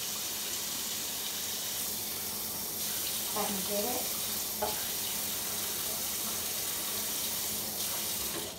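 Tap water running steadily into a measuring cup, shut off suddenly near the end.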